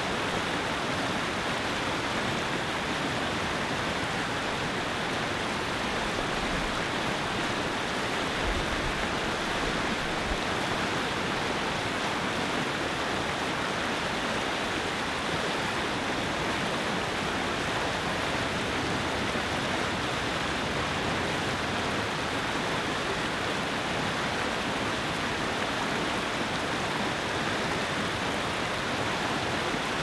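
Whitewater river rapids rushing steadily, a dense, unbroken hiss of churning water.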